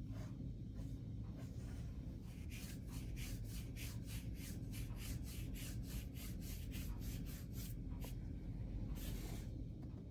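A paintbrush swishing quickly back and forth over gold leaf on paper, about three or four short strokes a second, then one longer stroke near the end. A low steady hum lies underneath.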